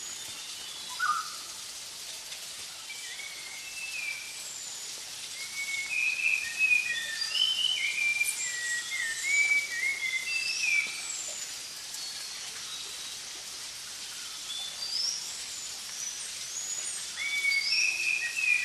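Several forest birds singing and calling together: many short whistled notes and quick gliding chirps, busiest in the middle and again near the end, over a steady high hiss of background noise.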